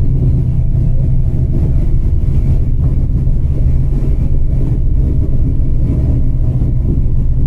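Loud, steady low rumble of wind buffeting the camera's microphone.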